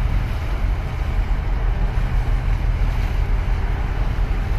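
Wind rumbling on the microphone and waves washing and splashing against concrete breakwater blocks, making a steady low-heavy noise.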